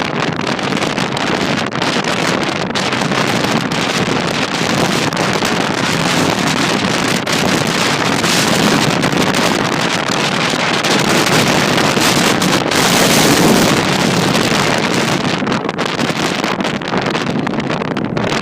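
Gale-force mountain wind gusting hard, with heavy wind buffeting on the microphone; the gusts swell strongest about twelve to fourteen seconds in.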